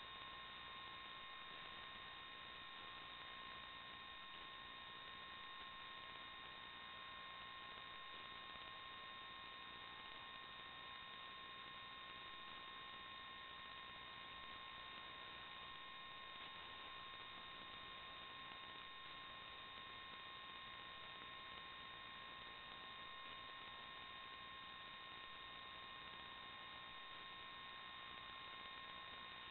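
Faint steady electrical hiss with a few thin, high, steady whine tones: noise on the FPV video recorder's audio line, with no sound of the quad itself.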